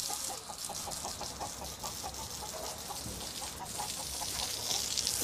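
Domestic hens clucking: a continuous run of short clucks, several a second, over a steady hiss.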